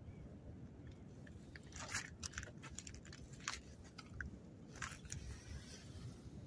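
Short, scattered crunching and rustling noises, several in a row from about two seconds in, from a person handling a just-landed small roach and river debris and shifting on a gravelly, snowy bank. A low steady rumble lies underneath.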